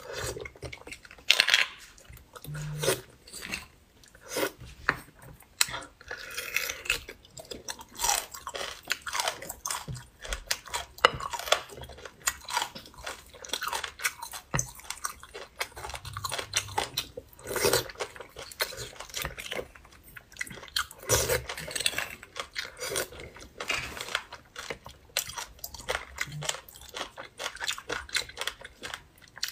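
Close-miked chewing and wet mouth sounds of a person eating spicy beef bone marrow, irregular smacks and clicks, with a metal spoon scooping the soft marrow out of sawn beef bone sections.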